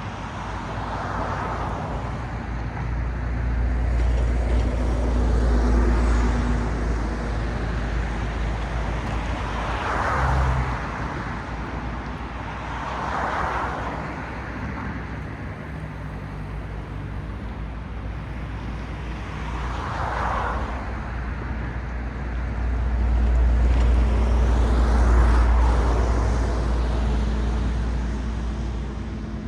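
Road traffic: cars passing one after another, their tyre noise swelling and fading about five times, over a steady low rumble.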